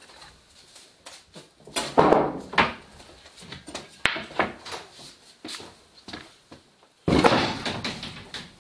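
Several knocks and scrapes of things being handled, a sharp click midway, then a louder, longer scraping clatter near the end that dies away over about a second.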